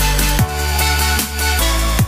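Background music: an electronic track with deep bass notes, a steady beat and short falling pitch sweeps.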